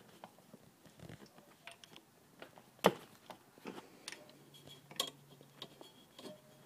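Hand tools clicking and clinking irregularly against metal engine parts during disassembly, with a sharper metallic clink about three seconds in and another about five seconds in.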